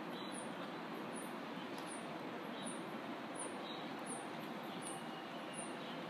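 Wind through the leaves of a mango tree, a steady even rustle, with a faint high chirp repeating regularly, a little faster than once a second.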